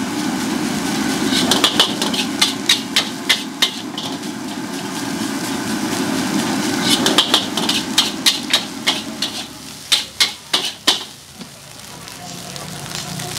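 Metal wok spatula striking and scraping a steel wok in quick strokes, about three or four a second, as fried rice is tossed and stirred. The strokes come in two runs a few seconds apart, over a steady sizzling rush.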